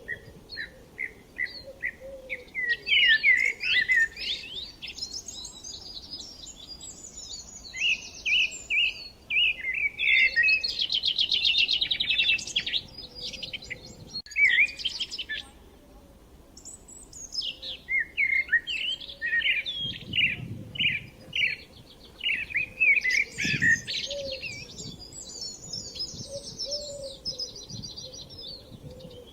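Several songbirds singing at once, a dense dawn-chorus mix of repeated short chirps, rapid trills and slurred whistled phrases, thinning out briefly twice.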